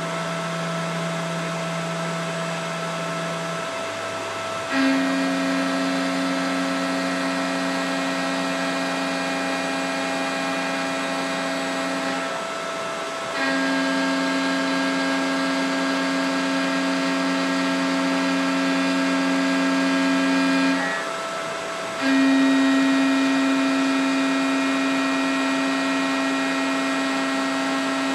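Mikini 1610L CNC milling machine facing aluminum with flood coolant, its spindle running at full speed (5,400 RPM) on a new AC inverter-duty motor driven by a Hitachi VFD, with a steady whine. The cutter engages the aluminum in three stretches of about seven seconds each, with a louder hum during each cut. Each stretch stops abruptly, with a short lull between passes.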